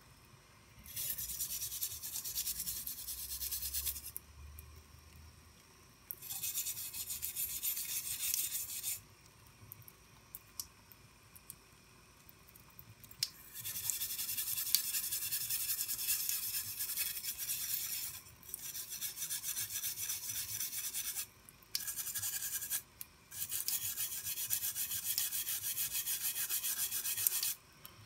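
Rusty knife blade scrubbed by hand in repeated scraping strokes. The strokes come in six runs of one to five seconds each, with short pauses between.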